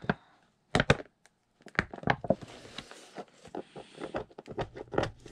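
Cardboard packaging being pulled apart and torn by hand: irregular crackles, rips and taps, sparse at first and busier from about two seconds in.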